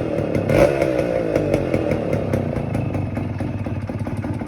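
Two-stroke motorcycle engine, its rattling silencer freshly tightened, blipped once about half a second in so the pitch jumps and falls away, then running on at a steadier low speed.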